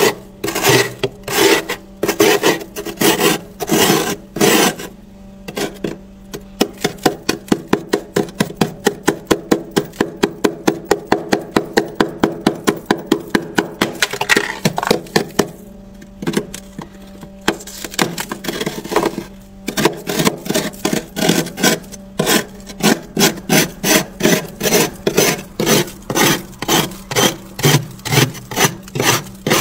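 Metal spoon scraping thick frost off a freezer wall: a rhythmic, scratchy rasp of quick repeated strokes, about four a second at its fastest in the middle.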